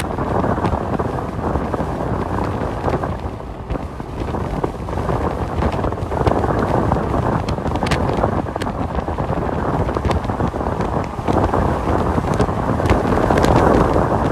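Steady road and engine noise inside a semi-truck's cab at highway speed, with a few faint clicks.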